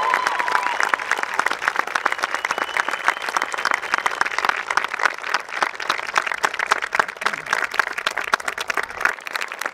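Outdoor crowd of spectators clapping and applauding, a dense, steady patter of many hands.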